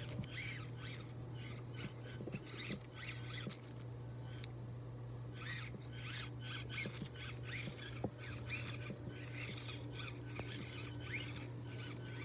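Axial SCX24 1/24-scale RC crawler climbing over logs: its small electric motor and gears whining in short spurts as the throttle is worked, with squeaks, scrapes and a few light knocks of the tyres and chassis on the wood.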